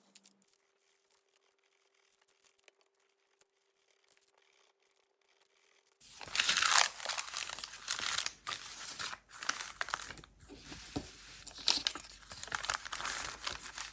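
About six seconds of near silence, then dry, scratchy paper rubbing and rustling in quick, irregular strokes, like a paper blending stump worked over pencil shading.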